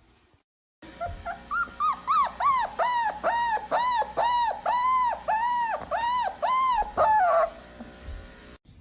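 A dog whining in a fast run of high calls, about two a second. Each call rises and falls in pitch, and the run stops suddenly near the end.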